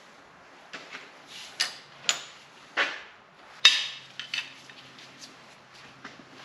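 Steel hand tools clinking and clanking: breaker bars and a socket being worked on a seized crankshaft pulley bolt. There are about ten irregular clanks, the loudest a sharp ring about three and a half seconds in.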